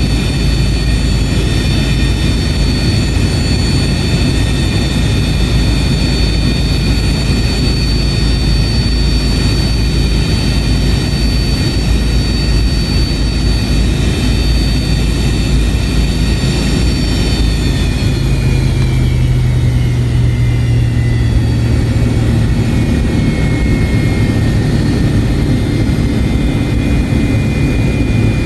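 Cabin noise of an MD-88 taxiing on its single running left Pratt & Whitney JT8D turbofan: a steady low rumble with a high engine whine. About two-thirds of the way through, the whine glides lower in pitch as the engine spools down a little.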